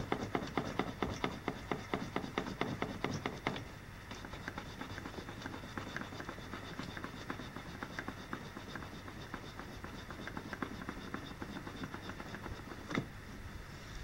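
Hand rubbing and working a Ford Focus front seat: a fast, even run of light scratchy clicks for the first few seconds, then fainter scattered clicks, with one sharper click near the end.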